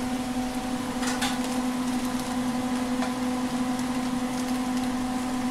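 Steady, even hum of a kitchen appliance motor, a low tone with fainter higher overtones, over a soft hiss.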